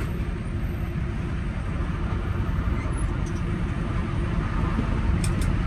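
Steady low rumble of a semi truck's diesel engine, with two light clicks near the end.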